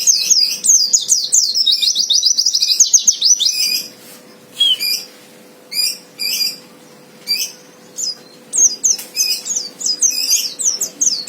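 White-eye (pleci) singing a fast, high twittering song of rapid notes. About four seconds in it breaks into a few short separate calls, then resumes the rapid song about eight and a half seconds in. It is the song of an aggressive "fighter" male, of the kind used to provoke rival birds into singing.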